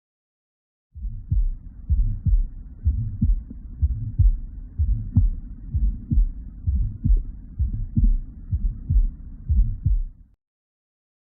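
Heart sounds heard through a stethoscope: a regular lub-dub heartbeat at about one beat a second, starting about a second in and stopping a second before the end.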